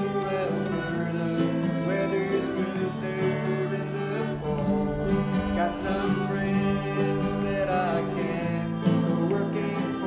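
Acoustic folk ensemble of guitar, banjo, fiddle, accordion, tin whistle and flute playing a slow country-folk song, with the strings strummed and plucked over held chords.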